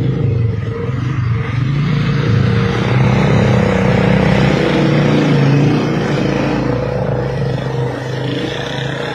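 Small motorcycle engines running at low road speed, with rushing wind and road noise that swells in the middle and eases near the end.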